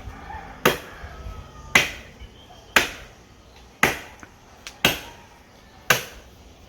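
Machete chopping into a standing tree trunk: six hard strikes about a second apart, the trunk nearly cut through.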